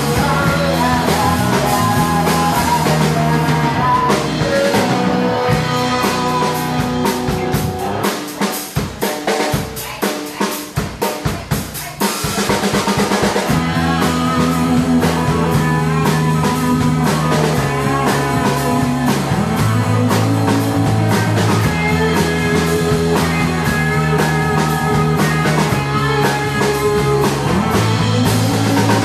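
Live rock band playing, with electric guitars, bass and drum kit. About eight seconds in the bass and most of the band drop out, leaving a drum break; the full band comes back in around twelve seconds.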